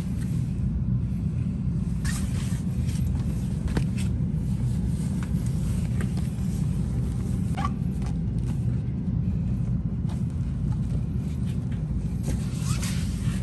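A steady low rumble, with a few faint rustles and scrapes as a sofa's back cushion, with its fabric backing and plastic wrap, is handled and pushed into its slot.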